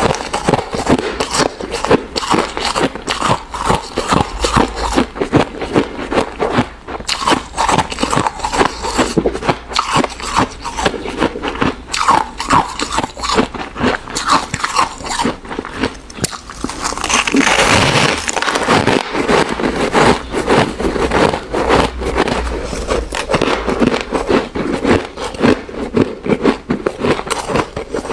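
Ice being bitten and chewed close to the microphone: rapid, dense crunching and cracking, with a smoother, denser stretch of crunching about two thirds of the way in.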